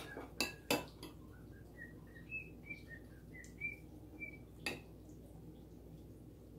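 A utensil clinks against a glass bowl as grated marinated carrots are scooped out: two sharp clinks near the start and one more about two-thirds of the way in. In between comes a run of faint, short, high chirps.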